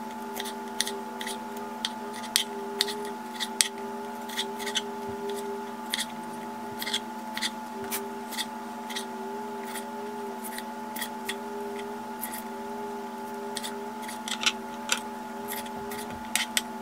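Kitchen knife slicing sweet peppers on a wooden cutting board: irregular sharp taps of the blade striking the board, a few a second, over a steady hum.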